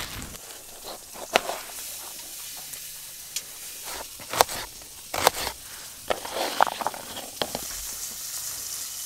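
Kitchen knife cutting an onion and a bun, its blade clicking sharply against a plastic camp plate a handful of times, over a low steady hiss.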